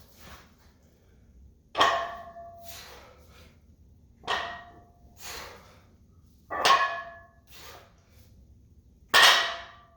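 A loaded Olympic barbell with collared weight plates set down and lifted again, four times, each a loud ringing metal clank followed about a second later by a softer knock. The collars hold the plates snug, so they clank without sliding.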